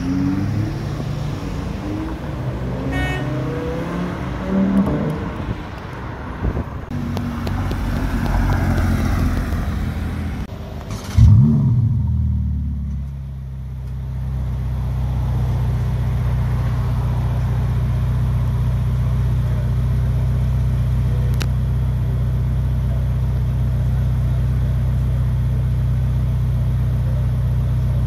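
Audi R8 Spyder's V10 accelerating away, its revs rising several times through the gears. Then a Ferrari F8 Tributo's twin-turbo V8 starts with a short, loud flare of revs about eleven seconds in and settles into a steady idle.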